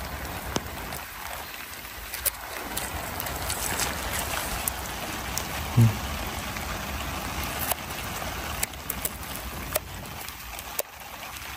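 Steady rain patter: a soft even hiss with many scattered drop clicks.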